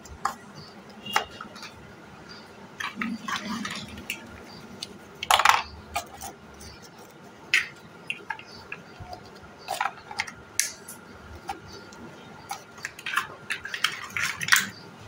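Large plastic building blocks clacking and clicking as they are snapped together and handled, in scattered, irregular knocks, with a louder burst about five seconds in and a busier run of clatter near the end.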